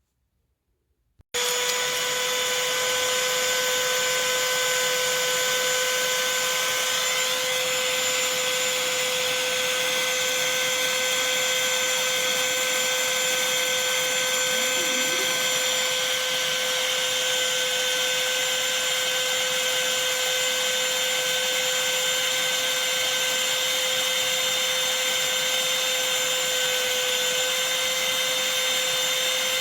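Black+Decker cordless handheld vacuum switched on about a second in, then running steadily with a high, even motor whine and airflow hiss.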